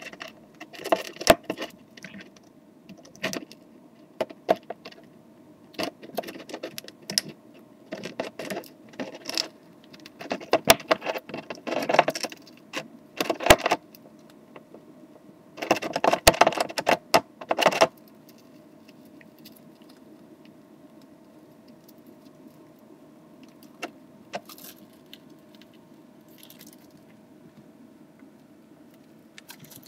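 Roborovski dwarf hamster gnawing and crunching a hard dog biscuit: quick crisp clicks and crackles in irregular clusters, thickest a little past the middle, then mostly stopping about two-thirds of the way in.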